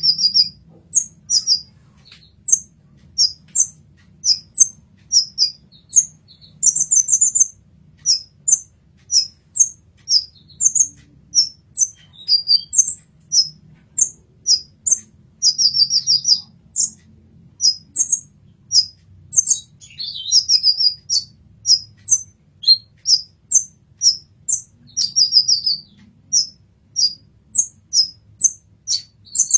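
Sunbird ('kolibri ninja') singing: a steady string of short, high, sharp chirps, about two a second, broken now and then by brief trilled runs.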